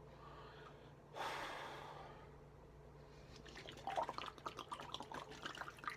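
Water sloshing and dripping in a water bottle being swirled to start a vortex for a tornado chug, with a short rushing sound about a second in and irregular splashing from about three seconds in; the spin does not form.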